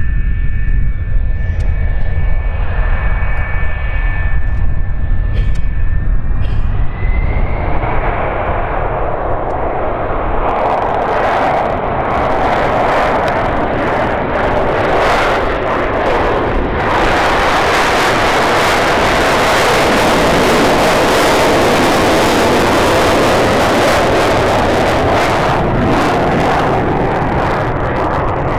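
McDonnell Douglas RF-4E Phantom II's twin General Electric J79 turbojets running with a steady high whine, then spooling up about six seconds in with a rising whine. The sound grows into a loud crackling rush by about ten seconds in and holds at full takeoff power through the takeoff roll and lift-off.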